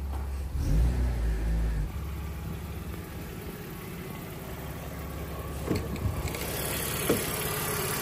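BMW 325 Cabrio's straight-six engine running, briefly revved about a second in, then settling back to a steady run. There are two short knocks in the last few seconds.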